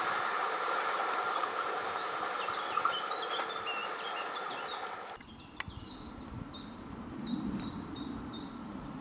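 A Meridian electric multiple unit running past on the line, its steady hum with a held tone slowly fading, with birds chirping. About five seconds in the sound cuts to a quieter scene of evenly repeated high chirps over the faint low rumble of another electric train approaching.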